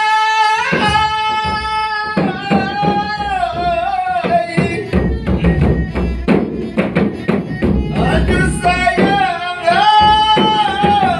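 Malay dendang folk song: a voice holds long notes, bending and ornamenting them, in phrases over steady drum beats.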